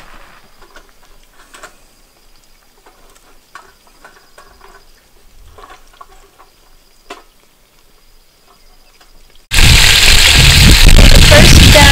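Faint outdoor quiet with a few small clicks, then about nine and a half seconds in a sudden loud, dense sizzling of chicken thighs frying in oil in a cast-iron Dutch oven.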